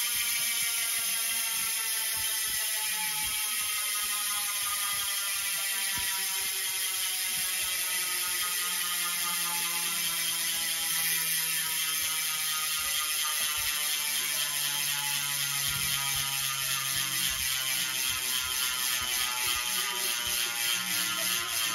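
Scribe Duty-D rear wheel's freehub buzzing as the wheel freewheels, a rapid run of ratchet clicks. The click rate and pitch fall slowly as the wheel spins down.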